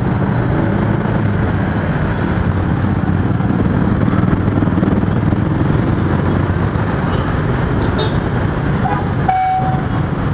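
Dense road traffic, mostly small motorcycle engines with some cars, running in a steady drone as it moves across a railway level crossing. A short horn beep sounds about nine seconds in.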